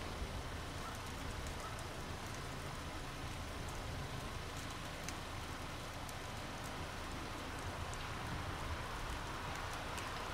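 Drips and drops pattering on ice-glazed tree branches and icicles during an ice storm: scattered light ticks over a steady hiss.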